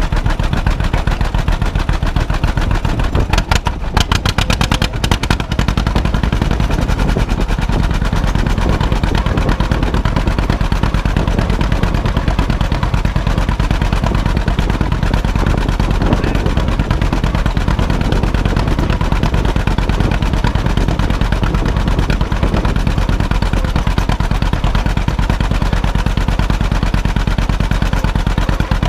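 1952 John Deere B's two-cylinder engine running, its exhaust firing in a rapid, even string of pops close to the microphone. A few seconds in, the individual pops briefly stand further apart before the steady run resumes.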